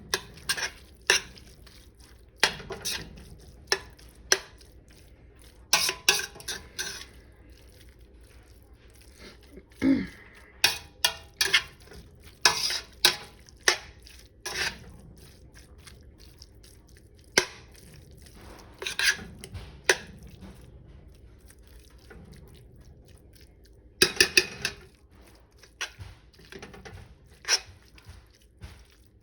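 A utensil stirring corned beef and cabbage in a pot, with irregular clinks and scrapes against the pot's sides, in clusters separated by short pauses.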